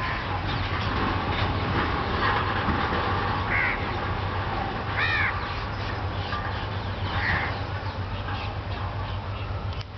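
Birds calling outdoors: a few short calls, the loudest about five seconds in and others shortly before and after, over a steady background hum.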